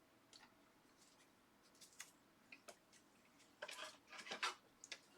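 Faint clicks and rustles of trading cards being handled and flipped through, with near silence between them and a short cluster of handling noises late on.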